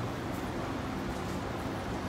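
Kachoris deep-frying in hot oil in a kadai, a steady sizzle with faint crackling, over a low steady hum.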